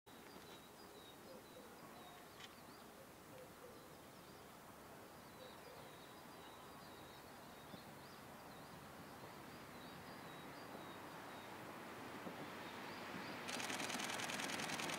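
KiHa 110 series diesel train heard from afar across a valley, its running sound slowly swelling as it approaches, while small birds chirp over the top. About a second and a half before the end a sudden louder rush with a fast rattle comes in.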